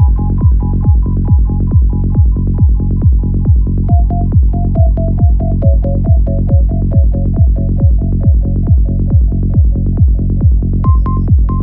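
Psytrance music: a steady four-on-the-floor kick and bassline at a little over two beats a second under a repeating synth melody. The melody steps down lower about four seconds in and climbs back up near the end.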